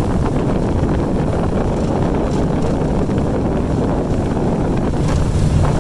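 Wind buffeting the microphone on a small flat-bottomed boat under way, over the steady drone of its motor. A low hum from the motor grows stronger near the end.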